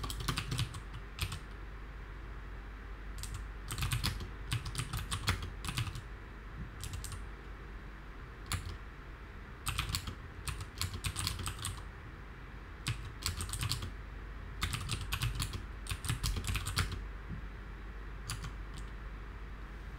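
Typing on a computer keyboard: runs of quick keystrokes in several bursts, with short pauses between them.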